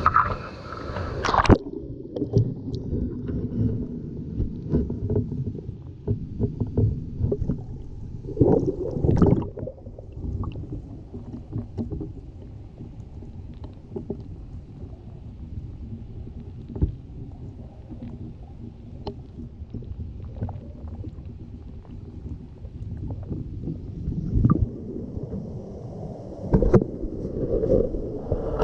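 Muffled underwater sound from a GoPro in its waterproof housing, submerged in a mountain stream: a low rumble of flowing water with scattered knocks and thuds, all the higher sound cut away. About a second and a half in the camera goes under, and near the end the fuller sound of air and water surface returns.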